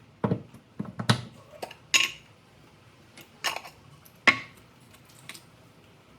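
Kitchen utensils and dishes being handled: a scattering of separate knocks and clinks, some ringing briefly, the loudest about four seconds in.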